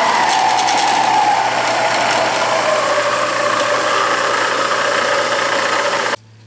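Rockwell Delta 15-inch variable-speed drill press running with its belt guard off: belt and variable-pitch pulleys humming with a whine that drops in pitch over the first two seconds as the speed changes. The sound cuts off suddenly near the end.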